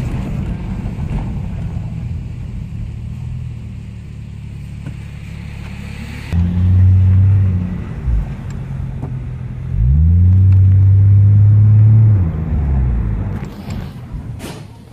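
1998 Toyota Aristo's twin-turbo 2JZ inline-six heard from inside the cabin. It cruises steadily at first, then accelerates hard about six seconds in. The revs drop briefly before it pulls loudly again, and it eases off near the end.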